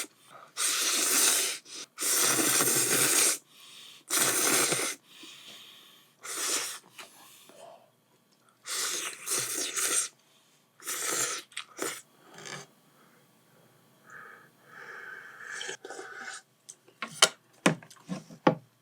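Jjajang ramen noodles slurped in a row of loud bursts, each up to about a second and a half long. Quieter chewing follows, with a few sharp clicks near the end.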